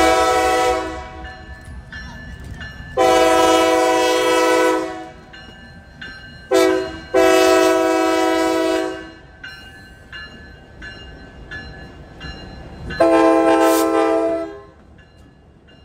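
Diesel locomotive air horn sounding as the train passes close by: long, long, short, long, which is the grade crossing signal, then one more long blast near the end. Locomotive engine rumble and wheel noise fill the gaps between the blasts.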